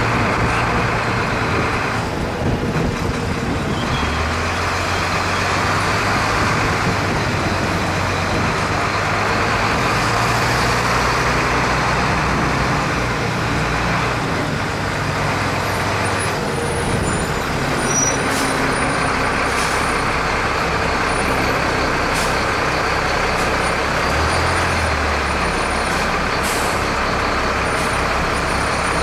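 Fire engine's engine and road noise heard from inside the cab while driving, a steady loud rumble and hiss with the engine note shifting a few times.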